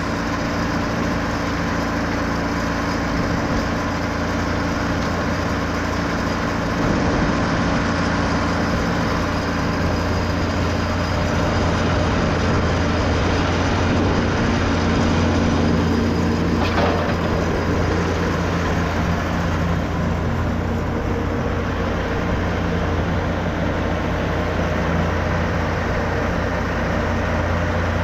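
The TimberKing 2520 portable sawmill's engine running steadily, a little louder for several seconds in the middle.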